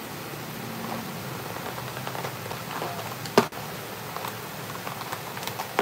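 Steady patter of rain, with one sharp click about three and a half seconds in and a smaller one near the end.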